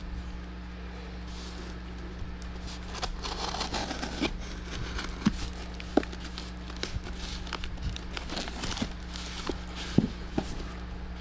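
A shipping package being cut and torn open by hand: crinkling and rustling, with a few sharp clicks and snaps, the loudest about six and ten seconds in.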